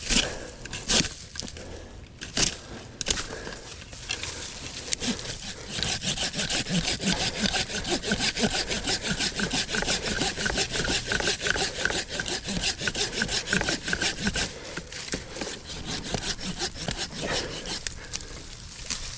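Hand pruning saw cutting through woody shrub stems with rapid back-and-forth strokes, running for several seconds from about six seconds in. A few sharp cracks of wood come before the sawing starts.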